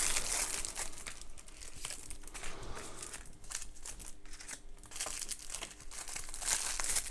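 Plastic packaging crinkling and rustling in irregular bursts as it is handled.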